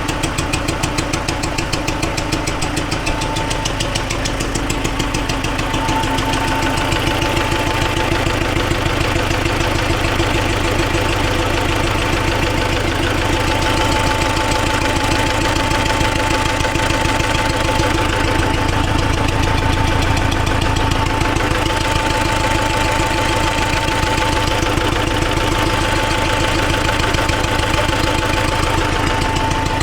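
T-40AM tractor's air-cooled diesel engine running steadily with a rapid, even knocking beat, the knock the owners are trying to trace and take as a sign the engine is running wrong. A steady whine runs over the engine note.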